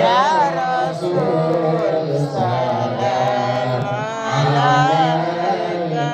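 A man singing a sholawat, a devotional Islamic chant, in long melismatic notes that waver and bend through ornamented runs.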